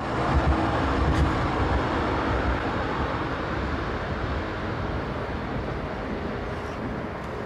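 Road traffic with a tram passing: a steady rumble of wheels and engines, loudest in the first couple of seconds and slowly fading.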